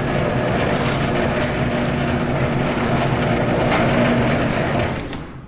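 A loud, steady rushing noise with a low hum beneath it, the sound effect of an intro title, fading out near the end.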